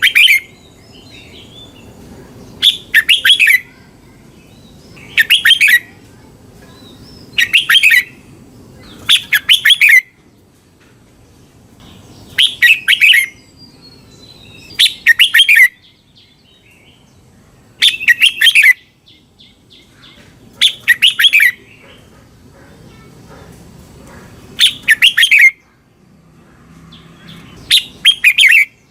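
Red-whiskered bulbul singing, with short phrases of quick whistled notes repeated every two to three seconds.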